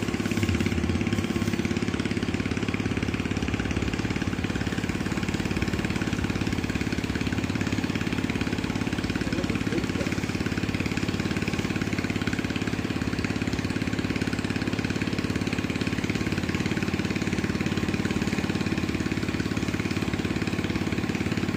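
Engine-driven water pump running steadily, pumping water out of a nearly drained fish pond.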